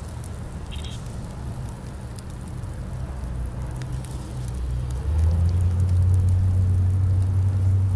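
Charcoal fire crackling with scattered sharp ticks, over a low rumble that grows louder about five seconds in.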